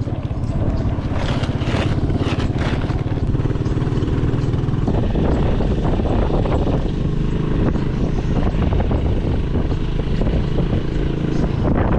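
A motor vehicle's engine running steadily at an even pitch, with a rushing noise over it in the first few seconds.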